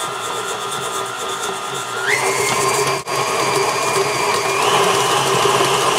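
Electric stand mixer motor running, its flat beater creaming butter and sugar; the motor's whine steps up in pitch about two seconds in and again near the end as it is brought up to high speed.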